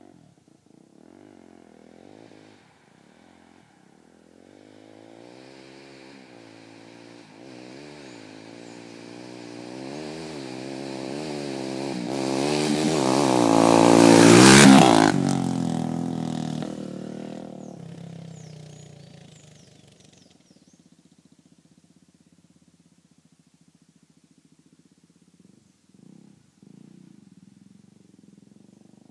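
Motorcycle approaching, its engine revs rising and falling as it comes. It passes close by about halfway through, the loudest moment, then its pitch drops and it fades away within a few seconds.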